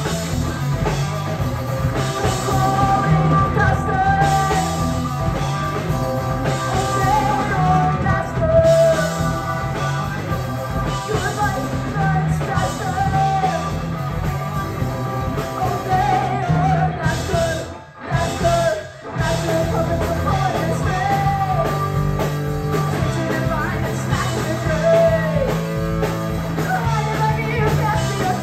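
Live rock band playing an instrumental passage: drum kit, electric guitar, bass and keyboard, with a gliding lead melody that fits the violin on stage. The band stops together for a moment about two-thirds of the way through, then comes back in.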